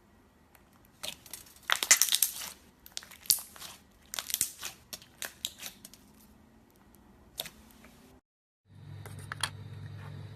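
Clear slime being squeezed and stretched by hand, giving irregular bursts of crackling and crinkling, loudest in the first few seconds. Near the end it cuts abruptly to a steady low hum.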